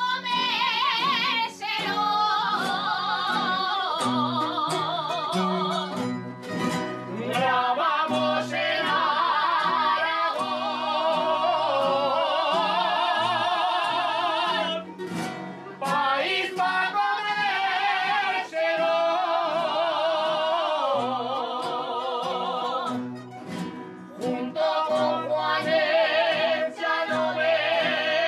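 Aragonese jota: a woman and men singing long, held phrases with a strong vibrato, over strummed and plucked guitars and other plucked strings.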